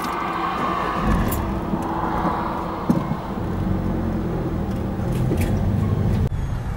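Diesel engine of a heavy articulated lorry pulling away from a standstill. A low, steady engine rumble builds from about a second in and cuts off abruptly near the end.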